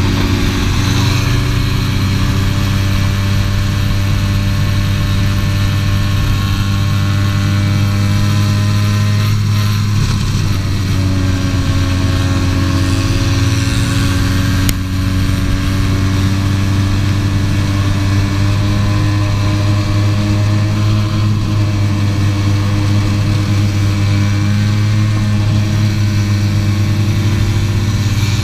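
80cc two-stroke racing kart engine at speed, heard from on board, running steadily high in its revs. Its pitch sags around ten seconds in, then climbs back up. A single sharp click comes about fifteen seconds in.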